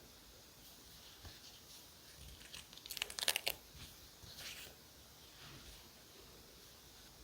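Journaling paper material being torn or peeled: a short crackling rip about three seconds in, with a softer rustle about a second later and light handling rustles around it.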